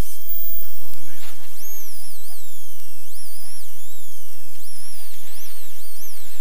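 Rally car engine revving hard on a stage. Its high-pitched note climbs and drops about once a second as the driver accelerates, shifts and lifts for corners.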